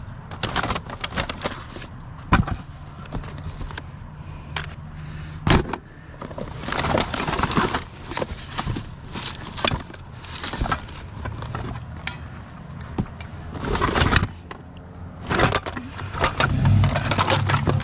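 Rummaging through a pile of discarded household junk and cords: irregular clatter, knocks and scraping of objects being picked up and moved, with two sharper knocks in the first six seconds, over a steady low hum.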